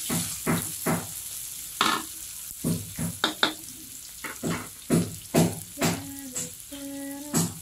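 Chopped onion, garlic and shallots sizzling in hot oil in a wok, with a wooden spatula scraping and stirring them in repeated strokes.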